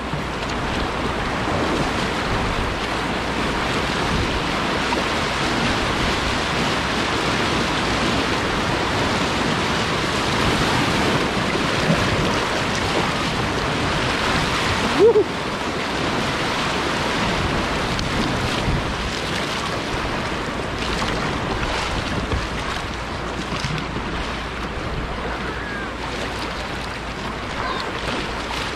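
Whitewater rapids of a river running high in flood, rushing steadily. A brief break in the noise comes about halfway through.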